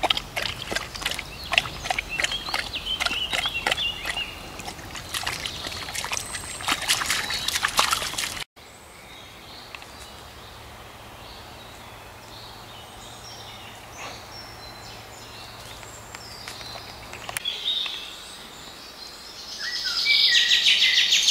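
A dog wading and drinking in a muddy puddle: irregular splashing and lapping of water for the first eight seconds. After a sudden cut, birds singing, with a louder burst of rapid chirping near the end.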